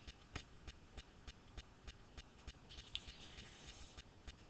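Near silence: room tone, with faint, evenly spaced ticks about three a second.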